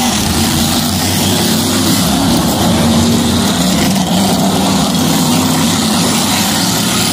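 NASCAR Whelen Modified race cars' V8 engines running hard as the field passes by on the track, a loud steady engine drone throughout.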